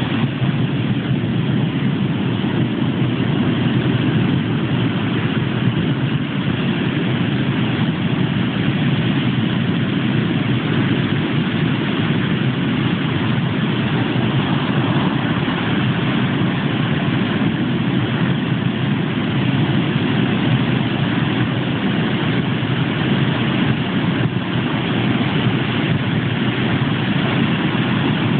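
Atlantic surf breaking on a sandy beach: a loud, steady low roar with no let-up.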